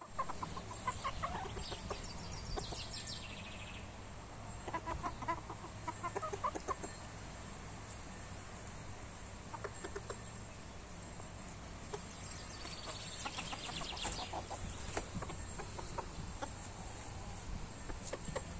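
Ko Shamo bantam chickens clucking in short runs of calls, with higher-pitched chirping coming in twice.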